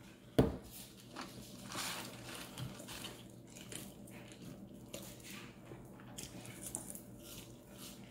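Close-up eating sounds: soft chewing with small mouth clicks and rustling as French fries are picked from a carton and eaten. One sharp knock about half a second in is the loudest sound.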